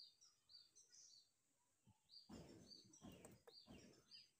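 Faint chirping of small birds, with a few soft rustling sounds about halfway through.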